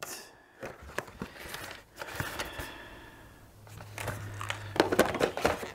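A cardboard retail box and its plastic packaging being handled: rustling and crinkling with scattered clicks and taps, busiest about five seconds in.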